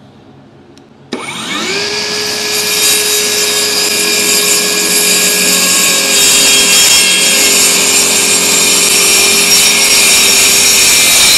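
Akaido 18-volt brushless cordless circular saw switched on about a second in, its motor rising in pitch to full speed, then cutting steadily through a wooden board.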